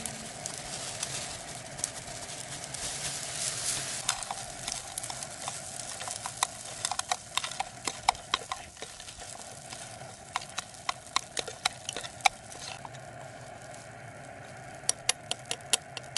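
Rice frying in a camp frying pan with a steady sizzle, stirred with wooden chopsticks that tap sharply against the pan again and again from about four seconds in, and in a quick run near the end.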